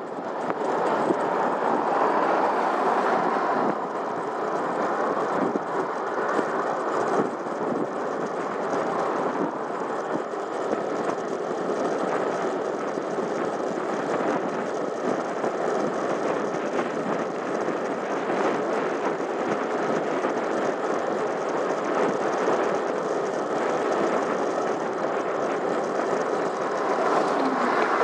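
Steady rumbling road and wind noise from a camera riding on a moving bicycle, with a lorry passing in the other lane near the end.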